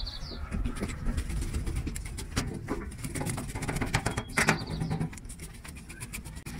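Kitchen knife scraping the scales off a rockfish on a stainless steel counter: a quick run of rasping scrapes and clicks, with one louder scrape about four and a half seconds in.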